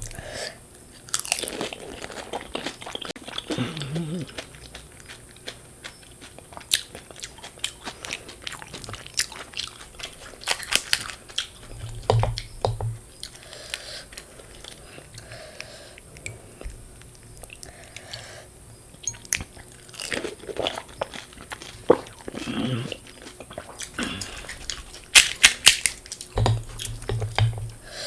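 Close-miked biting and chewing of pani puri (fuchka): the crisp, hollow puri shells crack and crunch in repeated sharp crackles, with louder clusters of crunches a few times.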